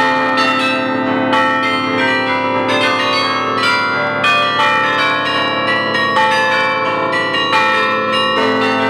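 Carillon of the Belfry of Bruges playing a tune: many bronze bells struck in quick succession, several strikes a second, their long ringing overlapping, heard up close among the bells.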